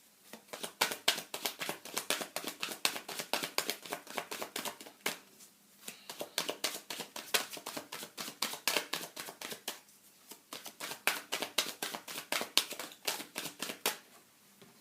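A deck of tarot cards being shuffled by hand: a rapid run of card clicks and flicks, several a second, with two short pauses about five and ten seconds in.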